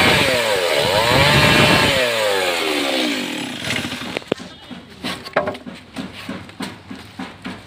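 Stihl MS 382 two-stroke chainsaw ripping lengthwise through a timber, its engine speed rising and falling under load; about two seconds in it cuts out and winds down. Then soft, regular footsteps.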